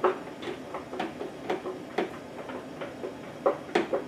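Screwdriver tightening the screws of a mounting bracket: a series of irregular clicks, roughly two a second, the loudest a pair near the end.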